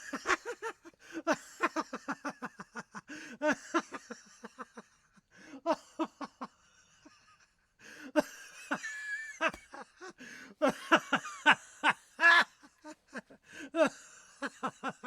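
Children laughing and giggling in repeated bursts of short 'ha-ha' pulses, with brief pauses between the fits.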